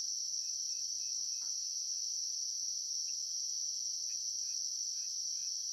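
Continuous, even, high-pitched drone of insects calling, with a few faint short chirps.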